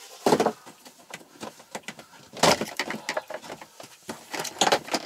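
Plastic interior trim panel in a Toyota Prius cargo area being handled and pulled down: a string of clicks, knocks and scrapes. The louder knocks come about a quarter second in, about two and a half seconds in and near the end.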